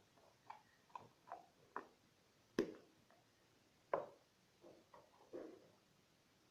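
Green slime being squeezed and worked in the hands, making faint scattered clicks and squishy pops, with two sharper pops near the middle.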